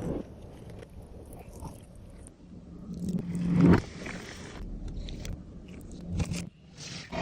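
Close-miked eating sounds of a person biting and chewing chicken biryani, with a loud noisy swell that builds to about three and a half seconds in and stops suddenly.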